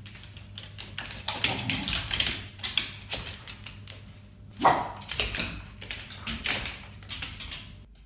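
A terrier barking repeatedly inside a moving car, the loudest bark a little before five seconds in, over the steady low hum of the car.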